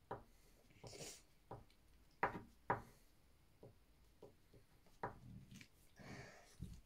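Crayon drawing on paper at a table: faint scribbling with a handful of sharp taps and knocks on the tabletop. The loudest are two knocks close together about two seconds in.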